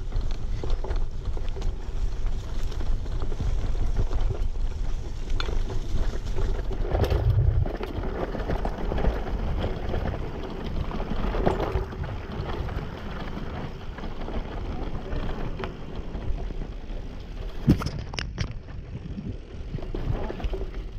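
Bicycle riding over a bumpy dirt trail covered in dry leaves: tyres rolling and crunching, the bike clicking and rattling over bumps, with wind rumbling on the microphone. Two sharper knocks stand out, one about seven seconds in and another a few seconds before the end.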